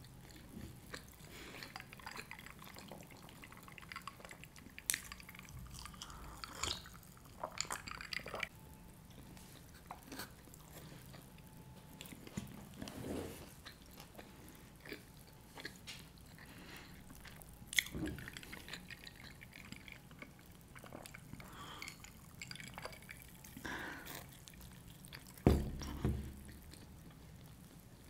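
Close-miked chewing of pizza with wet mouth clicks and smacks, coming in scattered bursts; a louder knock sounds near the end.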